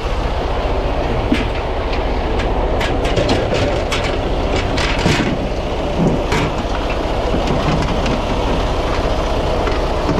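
Semi truck's diesel engine idling steadily, with a run of sharp metallic clicks and clanks from about one to six seconds in.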